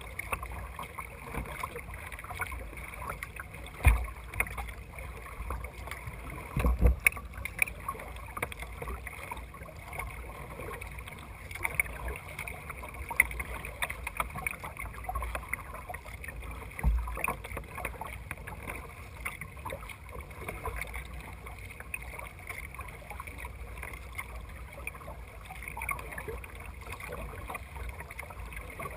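Water splashing and lapping against the bow of a plastic kayak as it is paddled along, with a steady low rumble of wind on the microphone and a few dull thumps.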